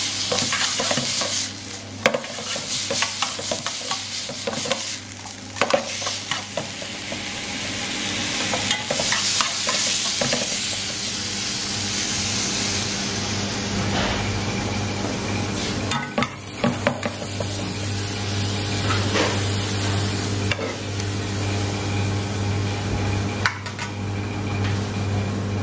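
Puntarelle (chicory shoots) sizzling in hot oil and soy sauce in a pan as they are stirred and tossed, with a few sharp knocks of the utensil against the pan. A steady low hum runs underneath.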